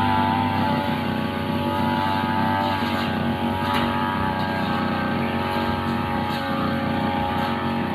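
Two-stroke Riu brushcutter engine running steadily, with a few faint ticks.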